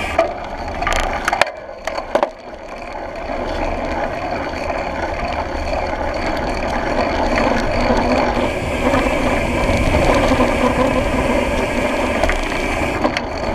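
Mountain bike rolling fast over a packed-dirt trail: knobby tyre noise and rattling, with the rear hub's freewheel ratcheting as the rider coasts. A few sharp knocks come between one and two seconds in, then after a brief lull the rolling noise grows louder as speed picks up.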